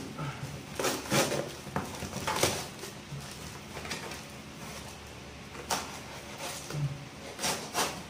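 A kitchen knife slicing through packing tape and a cardboard box, with cardboard tearing, in several short scraping strokes.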